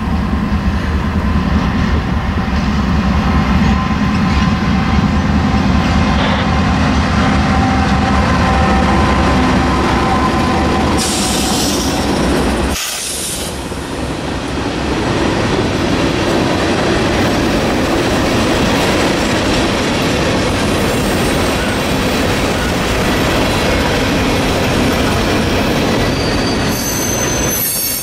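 Norfolk Southern freight train passing close by. Its GE diesel locomotives (an AC44C6M, a Dash 9-44CW and an ES44DC) run with a low engine drone. About halfway through the drone drops away, and loaded-sounding covered hopper cars roll past with steady wheel noise and high wheel squeal near the end.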